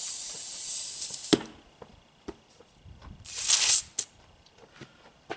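Compressed air hissing steadily, which cuts off sharply with a knock about a second in. A second short hiss of air follows about halfway through, then a sharp click.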